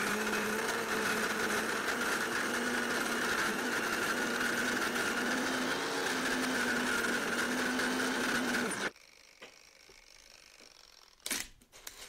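Bosch K3 electric coffee grinder motor grinding beans with a steady hum, its pitch rising a little in the first second. The motor cuts off suddenly about nine seconds in as its mechanical timer switch runs out, followed by a couple of light knocks near the end.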